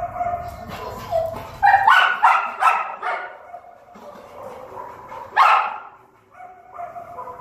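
Dog barking: a quick run of about five barks about two seconds in, then one more loud bark, with short high whines between.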